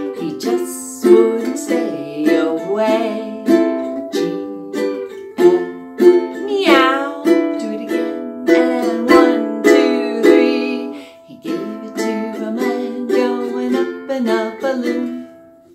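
Ukulele strummed through an A minor, G, F, E7 progression in a quick swinging rhythm, ending on E7 down strums, with a woman's voice singing along. About seven seconds in, the voice gives a sliding "meow".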